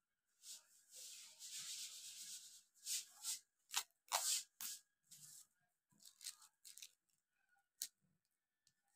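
Thin kite covering sheet crinkling and rustling as hands fold and press its edge over the kite's bamboo-and-line frame: a longer rustle about a second in, then short scattered crackles.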